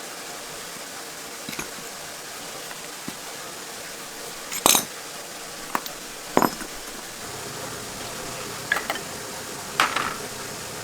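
Metal tools and parts clinking as they are handled during a tractor repair: about half a dozen sharp clinks, the loudest about halfway through, over a steady background hiss.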